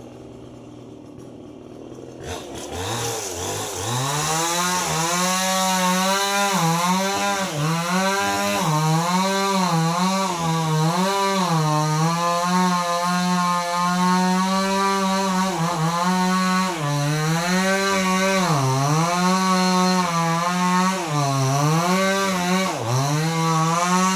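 Two-stroke chainsaw revving up to full speed about two seconds in, then cutting into an oil palm trunk, its engine note repeatedly dipping and recovering as the chain bites into the wood.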